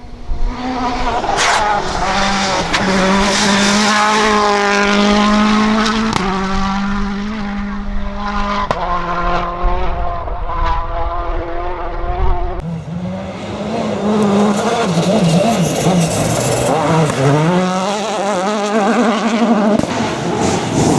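Citroën DS3 WRC rally car's 1.6-litre turbocharged four-cylinder engine revving hard, its pitch climbing and dropping through gearshifts, with a few sharp cracks. The sound changes about two-thirds of the way through, with less low rumble and quicker rises and falls in pitch.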